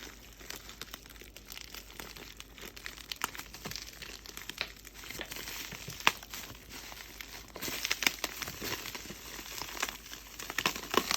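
Plastic packaging crinkling and crackling in irregular handfuls as it is pulled away from a handbag, with the loudest crackles near the end.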